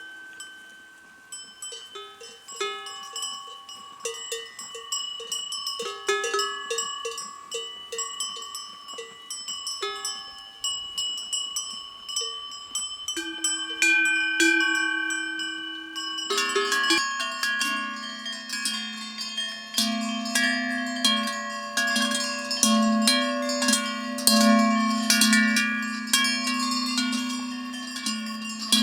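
Many metal bells of the cowbell kind clanking irregularly, several ringing over one another. About 16 seconds in, a louder, deeper set joins and the clanking becomes denser.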